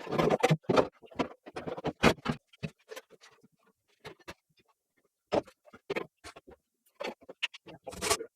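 Irregular knocks, taps and scraping from hand work with tools, in short clusters with brief pauses.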